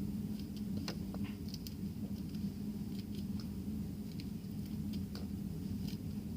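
Dried-out slime being stretched and pulled apart in the hands, giving scattered faint crackles, clicks and soft squishes, over a steady low hum.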